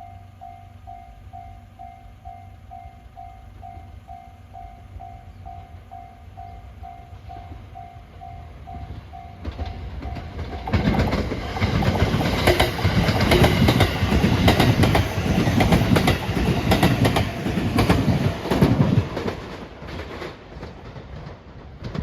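A Japanese level-crossing warning bell rings in even strokes, about two a second. About ten seconds in, a JR train runs past the crossing, loud, with wheels clattering over the rail joints, and the noise fades near the end.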